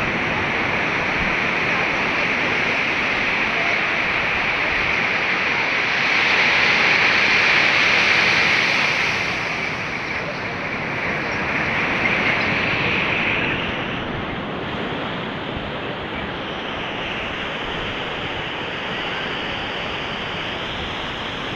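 Bay of Bengal surf breaking and washing up the beach, a steady rushing that swells louder about six to nine seconds in and settles lower after.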